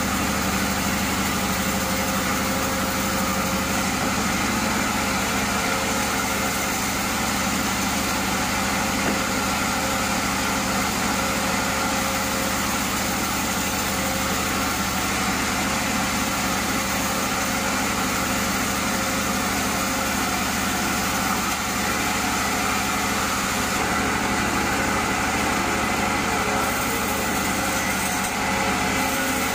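Band sawmill running steadily while sawing a slab from a burl log: an even mechanical hum with several steady tones.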